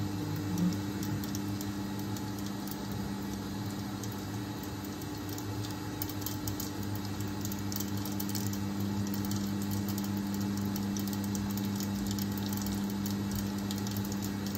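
Mustard seeds and urad dal frying in hot coconut oil in a kadai covered by a glass lid, spluttering with scattered light pops and crackles that are busiest in the middle. A steady low hum runs underneath.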